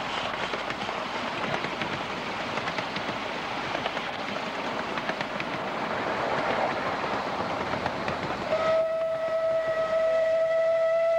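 Miniature BR Standard Class 4 steam locomotive running on the track, its wheels clattering and rattling over the rails. About eight and a half seconds in, its whistle starts: a steady high note, joined near the end by a second, lower note.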